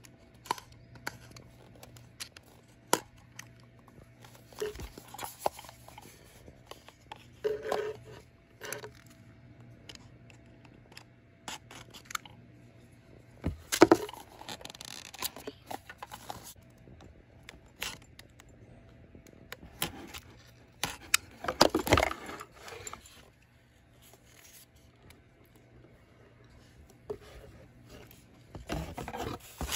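Scraping, tearing and rustling as a small cutter slits the tape on a perfume gift box and the box is opened and the bottle pulled out, coming in scattered bursts and clicks, with the loudest bursts about halfway through and again a little later.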